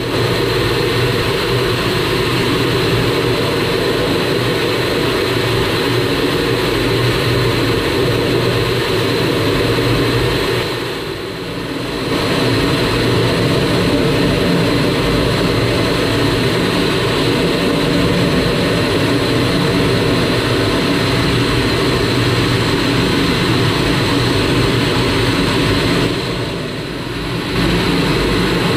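Canadair CT-133 Silver Star (T-33) jet in flight, its Rolls-Royce Nene turbojet and the airflow making a continuous loud drone with a steady high whine. The whole sound dips briefly twice, about 11 seconds in and again near the end.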